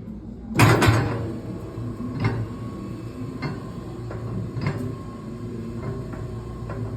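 Daniels DMX 200 quad mixer starting up in reverse with a loud clunk about half a second in, then running steadily: a motor hum with its stainless paddles turning and a light clack repeating about every second and a quarter.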